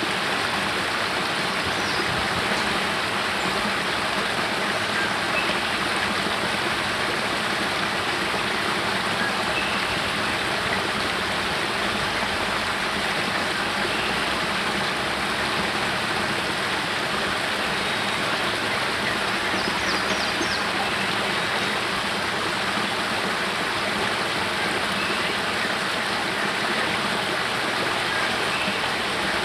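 Small spring-fed waterfall spilling over rocks into a pool, a steady, even splashing rush.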